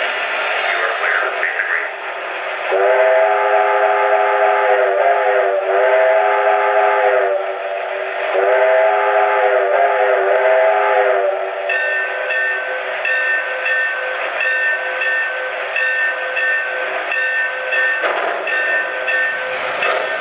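Lionel O-gauge New York Central steam locomotive's onboard sound system blowing two long blasts on its chime steam whistle, the pitch bending within each blast, then ringing its bell in a steady rhythm over a constant steam hiss. Two long blasts is the railroad signal for releasing brakes and proceeding, and the locomotive starts to pull away near the end.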